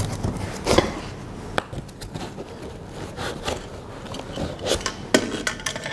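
3D printer parts being handled and lifted out of a cardboard box: scattered knocks, clicks and scrapes against the cardboard and each other.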